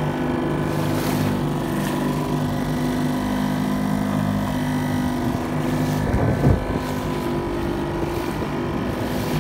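Small motorboat's engine running steadily under wind on the microphone, with a brief low thump about six seconds in.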